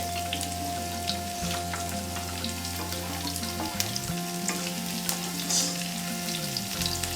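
Chopped chili, onion and garlic sizzling in oil in a frying pan, stirred with a spatula that clicks and scrapes against the pan. A steady low hum runs underneath.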